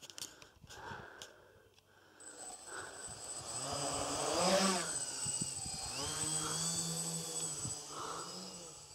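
Electric RC quadcopter's motors and propellers spinning up about two seconds in, rising to their loudest as it lifts off the grass, then a steady buzzing whine whose pitch shifts as it climbs and holds in the air.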